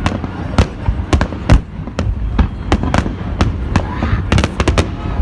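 Fireworks display: an irregular run of sharp bangs, about three a second, over a continuous low rumble.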